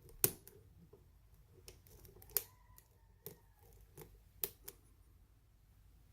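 Small sharp metallic clicks of a lock pick and tension wrench working in a pin-tumbler lock, as the tension is eased to drop overset pins. About six clicks at uneven intervals; one of them, a little over two seconds in, leaves a faint ringing note for about a second.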